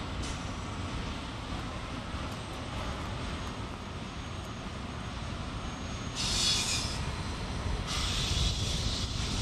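Stationary EF64 electric locomotive with a low, steady rumble. A short burst of air hissing comes about six seconds in, and another starts near the end and keeps going.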